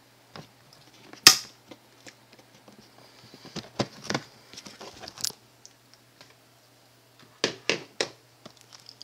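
Handling noise: scattered sharp clicks and knocks, the loudest about a second in, a cluster around four to five seconds and three quick ones near the end, over a faint steady low hum.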